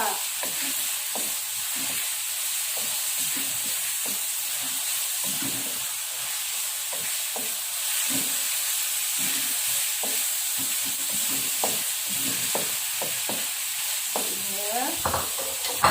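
Spice paste frying in hot oil in a pan, sizzling steadily, with a spatula stirring it and knocking and scraping against the pan at irregular moments. The paste has been cooked down until the oil separates, so it is done.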